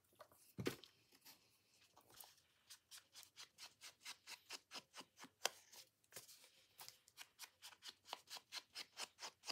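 Small scissors snipping quickly around the corners of a paper card to round them off, a long run of faint, even snips at about four a second.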